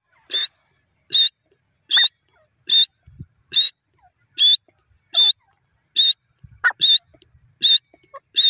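Grey francolin calling: a loud, short call with a wavering high tone, repeated evenly about every 0.8 seconds, some ten times.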